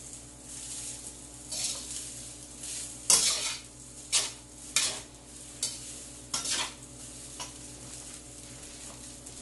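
Metal spatula scraping and turning rice in a hot wok, about eight quick strokes, then it stops about three-quarters of the way in. Under the strokes, a steady sizzle of the rice frying.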